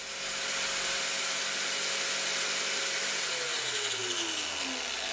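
Angle grinder running free at full speed, a loud steady whine and rush of about 94 dB; about three seconds in its whine starts to fall in pitch as the motor slows.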